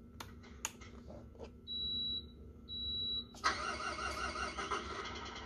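Scania 113H 1/14 RC truck model: a few clicks, then two short high electronic beeps as it is powered up. About three and a half seconds in, its sound unit starts a simulated truck engine, which runs on with a steady pulsing idle from the model's small speaker.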